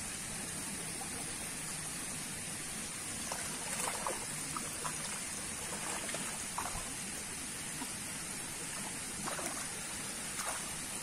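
Water sloshing in a fish pond, with several short faint splashes as hooked bawal (freshwater pomfret) thrash at the surface.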